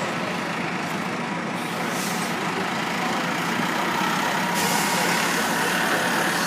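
Transit bus moving off slowly, its engine running steadily with a faint whine. About two-thirds of the way through, a steady hiss comes in on top.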